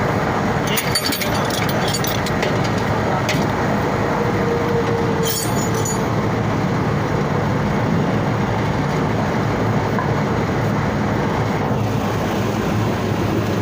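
Steady machinery drone with a low hum, and a few light metallic clinks about a second in, around three seconds in and near the middle.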